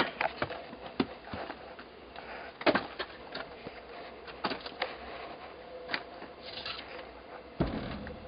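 Wooden knocks and clunks of split firewood being handled and a log being set on a chopping block: a sharp knock at the very start, a handful of scattered knocks after it, and a low thud near the end.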